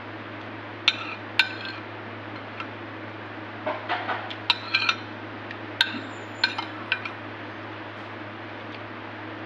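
Metal spoon clinking against a ceramic soup bowl in a string of sharp, separate clinks, mixed with slurps of the broth, with a steady low hum underneath.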